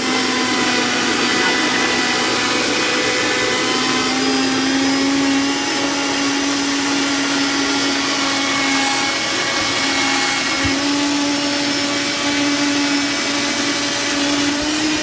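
Vitamix blender motor running at high speed, a steady whine that wavers slightly in pitch. The jar is packed a little tight with the smoothie ingredients.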